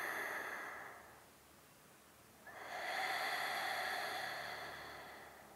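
Slow, deep yogic breathing, heard close: a breath tailing off about a second in, then a longer, louder slow exhale from about two and a half seconds in as the arms come back to centre.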